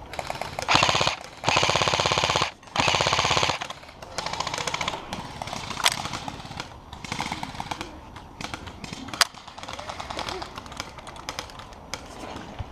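Airsoft rifle firing three full-auto bursts of rapid, evenly spaced shots in the first few seconds, each about a second long. Quieter, scattered shots and short bursts follow.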